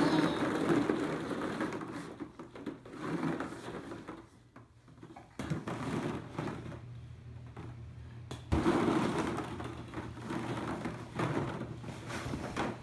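Hollow plastic ball-pit balls clattering and rustling against one another and the plastic wading pool as they are pushed around. The rattling dies down briefly near the middle and picks up again about two-thirds of the way through.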